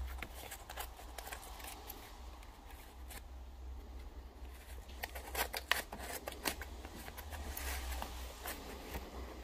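Scissors snipping through the edge of an old paper envelope: a string of small crisp cuts with paper rustling, the snips coming thickest a little past halfway. A steady low hum runs underneath.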